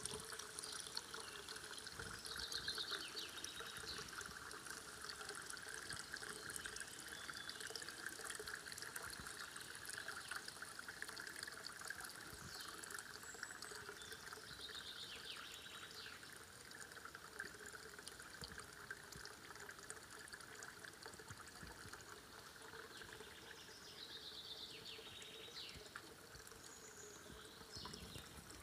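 Spring water trickling steadily from a small spout into a stone basin, growing a little fainter in the second half. A few short high chirps are heard over it.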